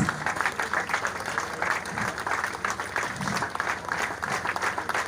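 A crowd applauding, a scattered, fairly light round of clapping.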